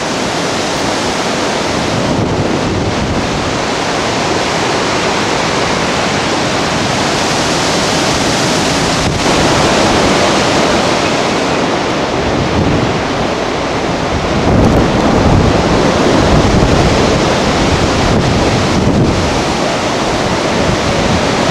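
Strong storm wind rushing through the trees in gusts, with heavy wind buffeting on the microphone. The rush swells about nine seconds in and again in the second half, where the low rumble of the buffeting grows heavier.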